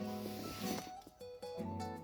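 Background music: a melody of short plucked notes, like an acoustic guitar, with a brief hiss in the first second.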